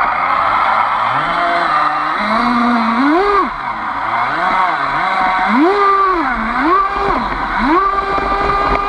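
Onboard sound of an RC boat's Aquacraft 2030 brushless motor on 4S, a whine that rises and falls in pitch about once a second as the throttle is worked, then holds high and steady near the end.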